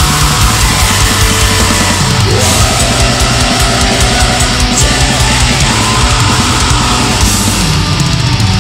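Epic black/doom metal recording: distorted guitars and drums playing loudly and steadily.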